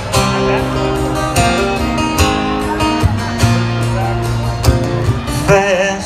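Live band playing the instrumental intro of a country song, led by a strummed acoustic guitar over sustained bass and keyboard notes.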